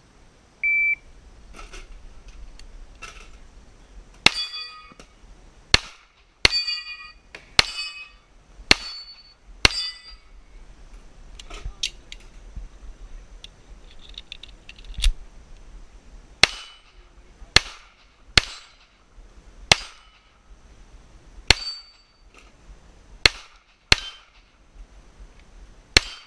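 A shot timer's short start beep, then a pistol fired about fifteen times at uneven intervals. Several of the shots are followed by the ringing clang of steel targets being hit.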